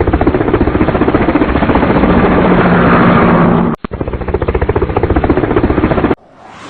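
A loud, rapidly pulsing mechanical sound, like an engine or rotor running. It breaks off for a moment nearly four seconds in and resumes, then gives way to a softer swelling sound near the end.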